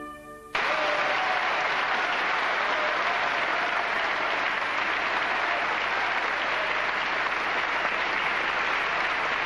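The last held chord of trumpet and orchestra fades and breaks off about half a second in. An audience then applauds steadily.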